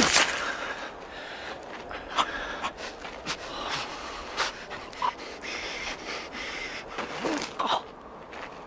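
Two men panting and gasping as they grapple at close quarters, with a sharp hit right at the start and several strained gasps later on.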